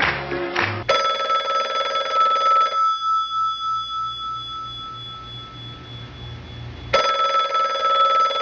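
Telephone ringing: a steady ring of about two seconds, a pause of about four seconds, then ringing again near the end.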